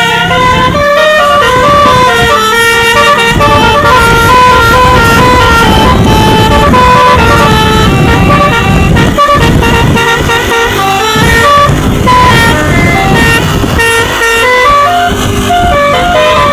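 A tour bus's 'telolet basuri' multi-tone musical air horn playing a fast melody of short stepped notes, with a low rumble beneath.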